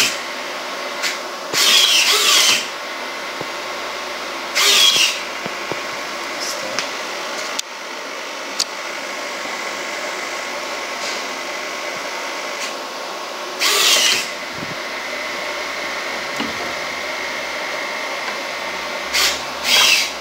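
Hobby servo motors in a 3D-printed InMoov robotic prosthetic hand whirring in four short bursts as the fingers move, over a steady mechanical hum.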